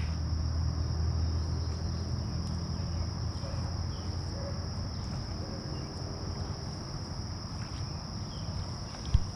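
Crickets trilling steadily in one continuous high note over a low outdoor rumble, with a single dull thump just before the end.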